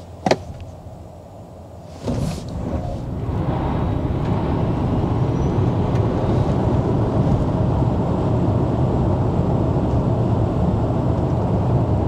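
Cabin sound of a Nio ET7 electric car launching at full power from a standstill. A single click just after the start, then from about two seconds in a sudden rise of tyre and road noise from its soft winter tyres, which builds and holds steady as the car passes 100 km/h.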